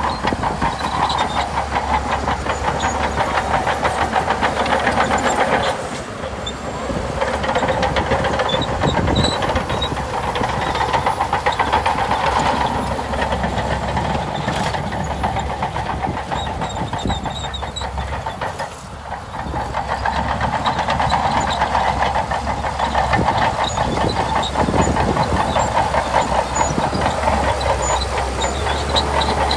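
Bulldozer diesel engine working under load, with the rapid, dense clatter of its steel tracks; the sound dips briefly twice, about six and nineteen seconds in.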